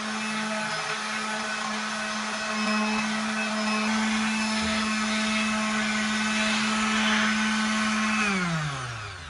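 Electric blender motor running at a steady speed, then switched off about a second before the end, winding down with a falling pitch.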